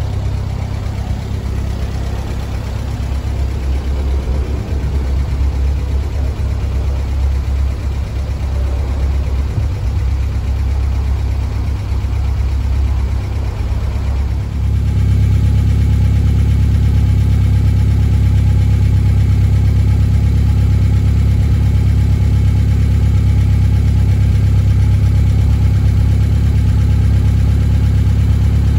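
1952 Fordson E83W's 1172 cc side-valve four-cylinder engine idling steadily, its tappets freshly adjusted and running through a new exhaust. About halfway through the drone gets louder and steadier.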